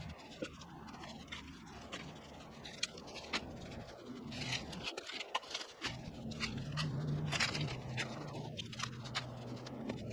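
A small engine running steadily at low speed, its hum shifting slightly in pitch, with scattered clicks and scraping.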